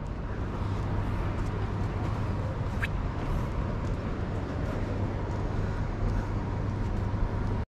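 Steady street traffic noise, a low rumble of passing vehicles, which cuts out abruptly for a moment near the end.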